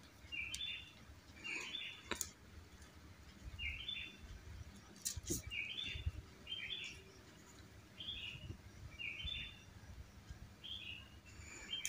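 A bird calling outdoors: short chirps repeated about once a second, with a few faint sharp clicks between them.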